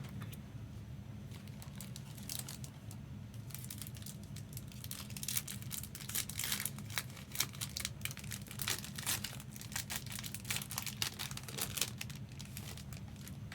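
A trading card pack wrapper crinkling and being torn open by hand: a dense run of sharp crackles that starts a couple of seconds in, thickens about halfway through and stops just before the end.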